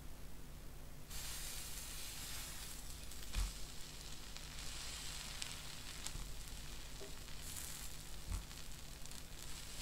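A pancake sizzling on a hot pan, starting abruptly about a second in as it is flipped onto its uncooked side, then a steady frying hiss. A couple of light knocks sound over the sizzle.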